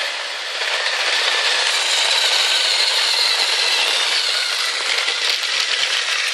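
Motorised Thomas & Friends toy trains running on plastic track: a steady whir of small electric motors with the clicking rattle of plastic wheels and cars, getting louder about half a second in as a train comes close.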